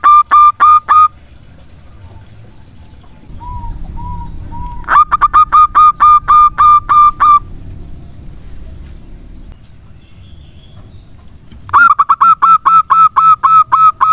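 Zebra doves (perkutut) cooing in loud runs of quick, clipped notes, about four a second. One run ends about a second in, another starts about five seconds in and lasts over two seconds, and a third starts near the end. A few softer coos come between the first two runs.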